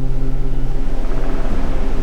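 Layered sound-therapy audio: steady low humming tones go on while a rumbling, hissing noise swells up beneath and around them from about halfway in.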